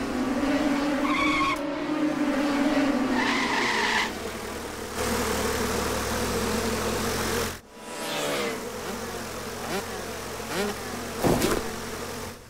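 Cartoon insect flight sound effects: wasps buzzing like small engines, a steady droning hum that shifts in pitch. The hum cuts off a little after halfway, followed by several quick sliding tones and a short sharp sound near the end.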